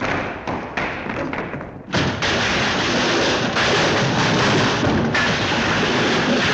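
Cartoon sound effect: a quick run of thumps and taps, then about two seconds in a loud, dense clattering noise that starts suddenly and holds.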